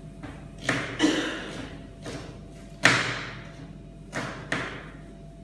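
Knife chopping on a cutting board on a steel worktable: about five irregular chops, the loudest about three seconds in, each dying away briefly.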